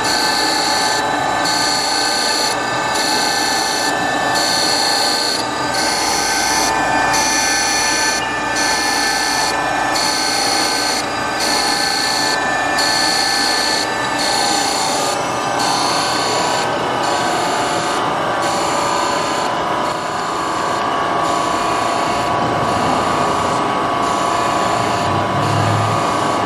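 Brown & Sharpe 1236 Micromaster hydraulic surface grinder running, its wheel and 5 HP motor giving a steady whine. A grinding hiss is broken by short gaps about once a second as the automatic hydraulic table carries the work back and forth under the wheel.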